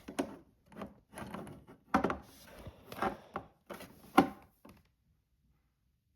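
Toy barn kit pieces being handled and pushed together: a series of sharp knocks, clicks and rubbing, the loudest a little after four seconds in. The sound then cuts off to silence.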